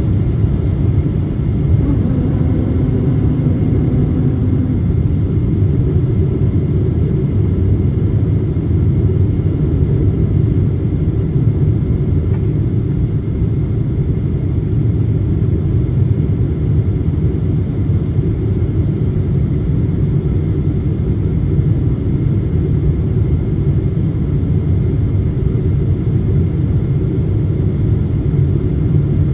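Steady low rumble of jet engines and airflow heard inside the cabin of a Boeing 777-200 airliner descending on approach.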